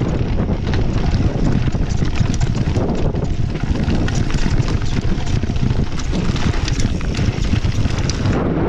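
Wind buffeting the microphone of a mountain bike rider's action camera, with a steady low rumble from tyres on a dirt and gravel trail and frequent sharp clicks and rattles from the bike jolting over bumps and stones.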